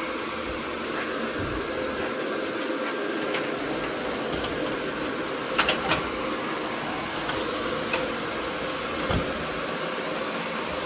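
Cooling fans of a running GPU mining rig whirring steadily, with a faint steady tone in the whir. A few light clicks come about halfway through.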